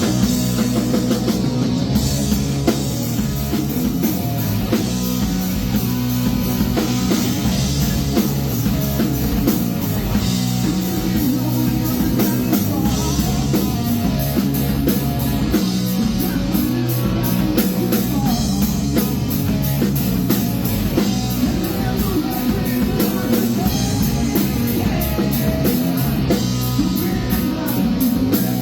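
Rock music played on a drum kit and electric guitar, with a steady driving beat.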